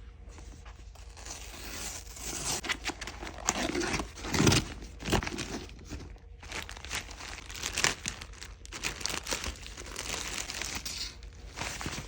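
Packaging being handled and unwrapped, crinkling and rustling in irregular bursts, the loudest about four and a half seconds in.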